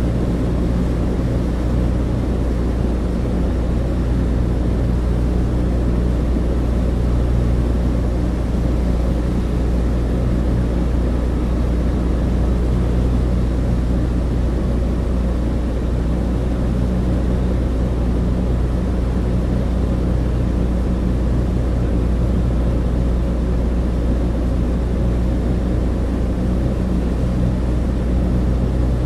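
Inside the cabin of a Douglas DC-3: the steady low drone of its two radial piston engines and propellers, unchanging in pitch and loudness.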